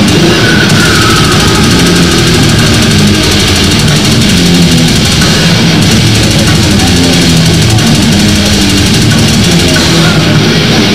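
Death metal band playing live: heavily distorted electric guitars and bass over fast drumming, a loud, dense, unbroken wall of sound.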